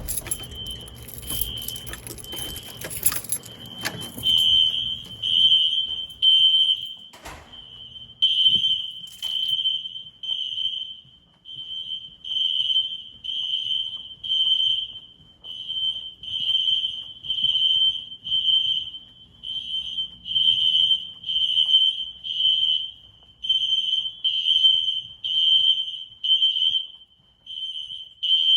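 System Sensor SpectrAlert Classic fire alarm horns sounding the building evacuation signal in the temporal-3 pattern: three high beeps, a pause, repeating. At the start there is a sharp knock, then a few seconds of clattering noise over the horns.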